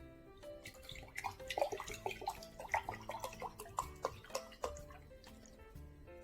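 Wet clicking and smacking eating sounds, close to the microphone, from chewing and slurping saucy tteokbokki, thickest from about one second in until near the end, over soft background music.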